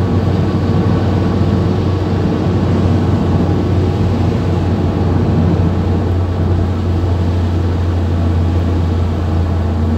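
Car driving on a wet highway in rain, heard from inside the cabin: a steady low drone of engine and road noise with tyre noise from the wet road surface.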